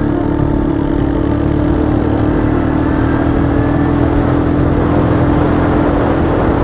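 ATV engine running under way at a steady, even pitch.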